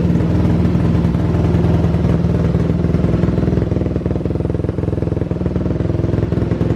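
Tuned, carbureted single-cylinder motorcycle engine, just started, running steadily and loudly at idle without revving.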